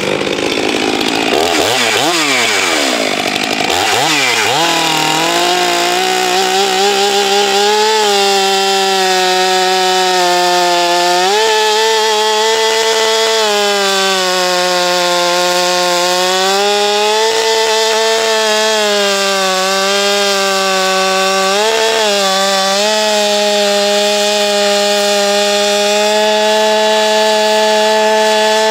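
Chainsaw with a 25-inch bar and skip-tooth chain, revved twice just after starting, then held at full throttle through a cut in a big, hard oak log. Its pitch dips briefly a few times as the chain loads in the wood, while the engine keeps high revs, which the owner puts down to the skip chain's fewer teeth.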